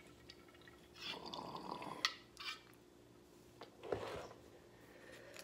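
Handling noises: a short rustle about a second in, a couple of light clicks around two seconds in, and another brief rustle near four seconds.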